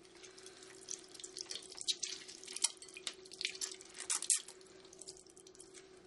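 Lemon half being juiced with a wooden reamer over a glass bowl: irregular wet, crackly squeezing sounds and juice dripping into the beaten egg, dying down about four and a half seconds in. A faint steady hum lies underneath.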